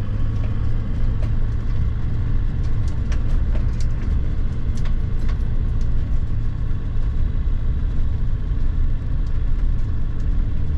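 Motorhome driving on a rípio gravel road: a steady, loud low rumble of tyres and engine, with scattered short rattles and knocks as the body shakes.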